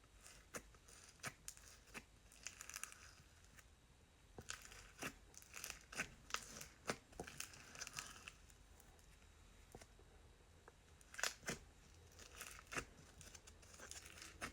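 Slime being stretched, poked and squished by hand, giving faint sticky crackles, clicks and small pops in irregular clusters.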